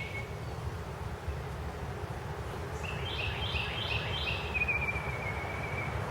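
A songbird sings one phrase starting about three seconds in: a run of quick, high, repeated notes that ends in a long trill. A steady low rumble continues underneath.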